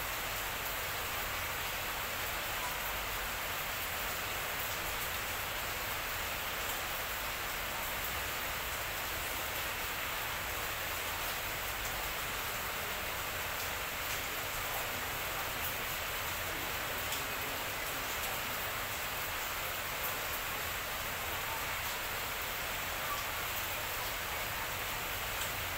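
A steady hiss with no distinct events.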